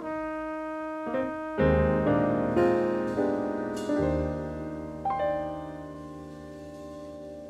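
Music: a piano playing slow chords that ring out and slowly fade, growing softer near the end.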